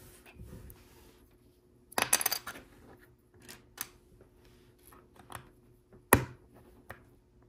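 Loose plastic LEGO pieces clattering and clicking as they are handled: a burst of rattling about two seconds in, a few scattered light clicks, and one sharp click just after six seconds.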